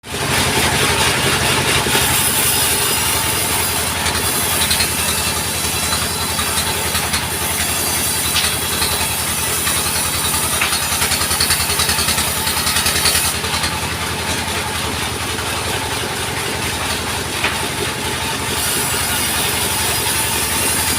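Engine-driven sawmill running steadily: a low, even engine throb under a high hiss that grows stronger and weaker in stretches.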